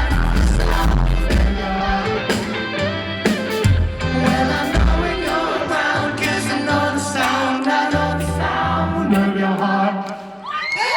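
Live pop-rock band playing, with drums, bass and singing, and the level drops briefly near the end.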